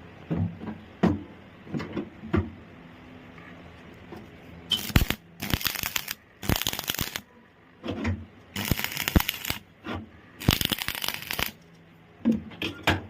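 Electric arc welding: five bursts of crackling sizzle, each up to about a second long, with a few sharp knocks before them.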